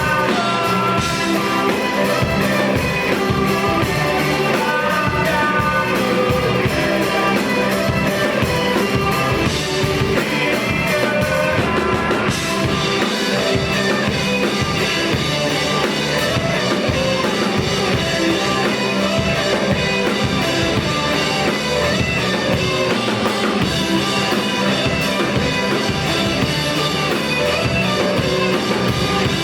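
A rock band playing, with drums, guitar and singing; the music runs at a steady loud level throughout.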